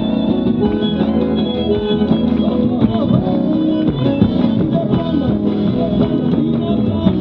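Instrumental interlude of a gato cuyano, a folk dance tune from Argentina's Cuyo region, with guitars playing the melody and accompaniment at a steady dance beat.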